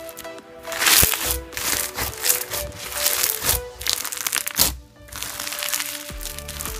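Beaded pink slime crunching and crackling as hands press and stretch it, the beads popping under the fingers, over background tropical house music.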